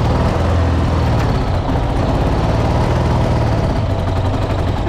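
Dnepr MT-10 motorcycle's flat-twin engine running steadily with a deep hum, which eases off a little about four seconds in.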